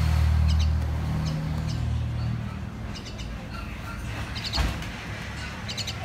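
Common myna giving short bursts of high chirps about once a second, over a low steady hum that fades after about two seconds. A dull thump sounds just before the five-second mark.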